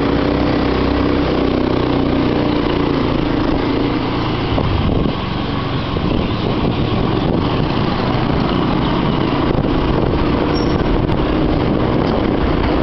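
Motorcycle engine running steadily while riding along a street, under a constant rush of wind and road noise.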